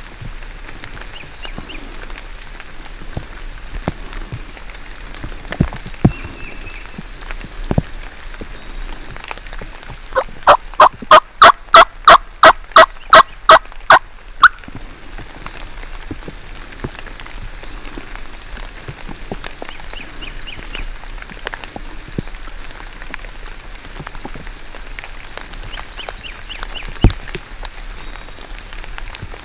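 Turkey yelping: a run of about a dozen loud, evenly spaced yelps lasting some four seconds, starting about ten seconds in. Underneath, steady rain patters, with scattered drops ticking close by.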